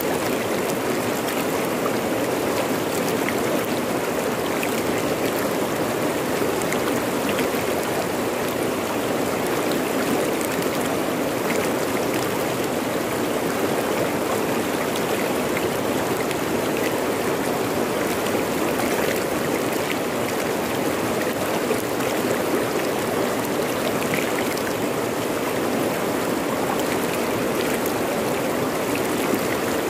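A fast-flowing river rushing over rocks: a steady, even roar of water with small splashes flecked through it.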